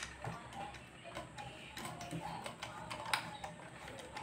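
Faint, irregular clicks and light taps of a monitor being reassembled, its plastic casing and fittings handled, with one sharper click about three seconds in.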